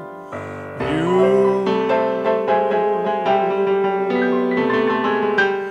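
Live music from an electric keyboard, playing sustained, changing chords between the sung lines of a song.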